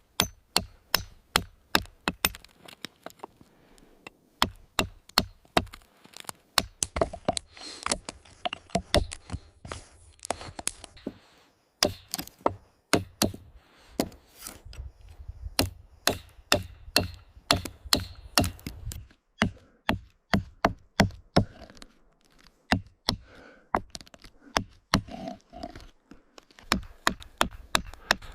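Carving tools striking a wooden tree trunk: a long run of sharp chops and knocks, a few a second at an uneven pace, with brief pauses.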